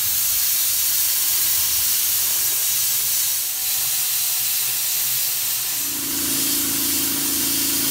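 Hypertherm Powermax 30 XP plasma cutter cutting steel: a loud, steady hiss of the air-driven arc. A steady low hum joins about six seconds in.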